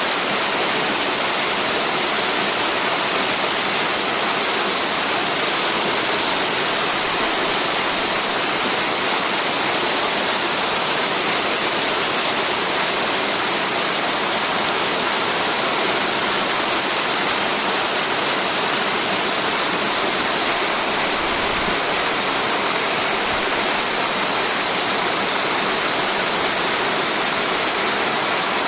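Multi-tier mountain waterfall, water rushing and splashing in a steady, unbroken hiss.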